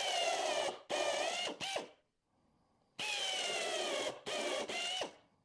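Cordless drill-driver driving a wood screw: the motor whines in a few short bursts, pauses, then runs again for about two seconds, its pitch sagging slightly under load.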